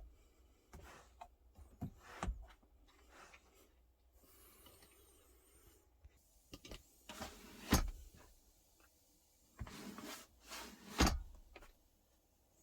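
Handling noises: scattered clicks, rubbing and light knocks, with two heavier thumps, one past the middle and one near the end.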